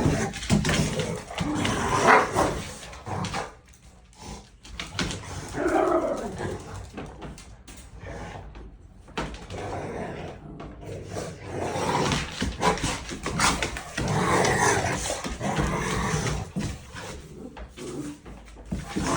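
A dog growling and barking in play, in irregular bursts with brief quiet pauses.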